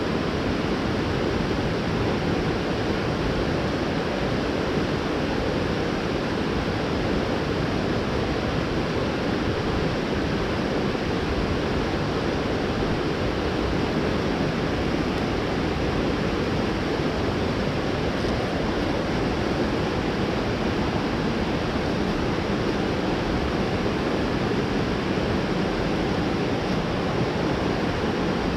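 Mountain stream water rushing steadily, an even, unbroken noise.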